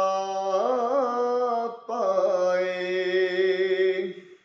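A man singing a naat solo without instruments: two long held vowel lines, the first with a short wavering ornament about a second in, the second trailing off near the end.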